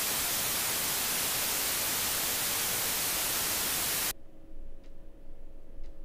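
Analog TV static: a loud, even hiss that cuts off suddenly about four seconds in, leaving a faint hum and a couple of soft ticks.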